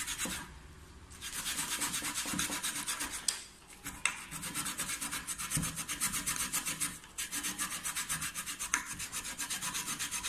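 Raw potato being rubbed up and down a stainless steel box grater: quick, even rasping strokes in four runs with short pauses between them.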